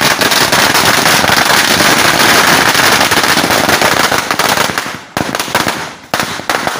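Firecrackers going off on the ground in a dense, rapid crackle of many small bangs, thinning near the end to a few separate loud cracks.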